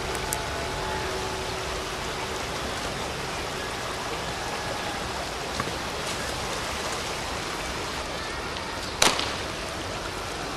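Steady hiss of water, from the shallow river flowing and falling rain. About nine seconds in there is a single sharp hit.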